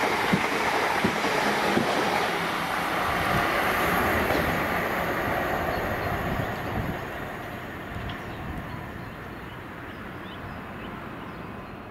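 A South Western Railway Desiro electric multiple unit passes through and runs away. Its wheels clatter over the rails at first, and the rumble fades steadily as it recedes.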